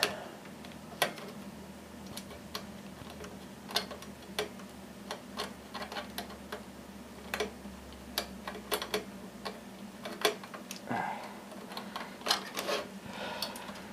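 Irregular light clicks and taps of metal parts being handled as a hard drive is fitted into a PC's metal drive cage, over a faint low hum that stops about ten seconds in.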